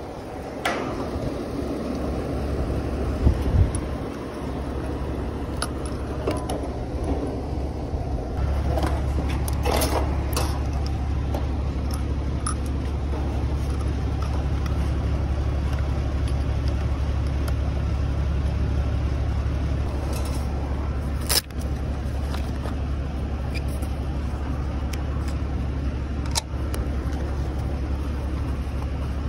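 Cordless 2 CFM vacuum pump running with a steady low hum, pulling a vacuum on the refrigerant lines through the low-side hose; it gets louder and steadier about eight seconds in. Handling knocks and a sharp click about two-thirds through.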